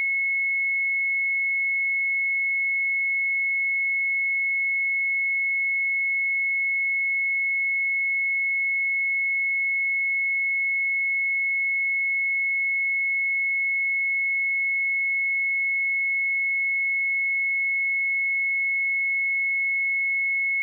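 Pure 2186 Hz sine-wave test tone, a single high steady pitch holding at constant level without change.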